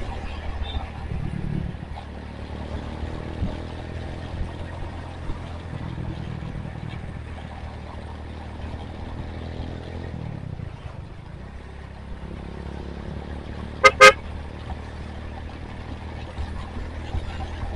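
Honda Tiger motorcycle's single-cylinder engine running steadily while riding. Late on, a horn gives two short, loud toots.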